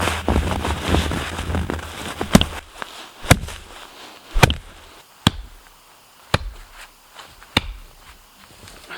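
Crunching and scraping of snow and brush being cleared, then about six sharp wooden cracks at irregular intervals of a second or so, as dead sticks and small branches are snapped.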